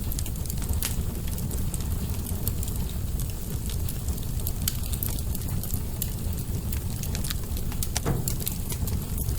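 Wood fire burning in an open fireplace: a steady low roar of flames with scattered crackles and pops, one louder snap about eight seconds in.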